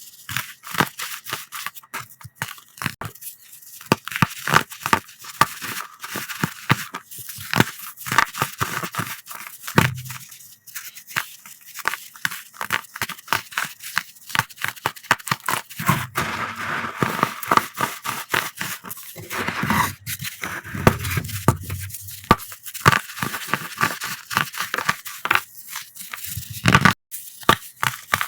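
Pressed powder blocks being crushed, with dense, rapid crunchy crackling throughout and a few duller, heavier presses partway through.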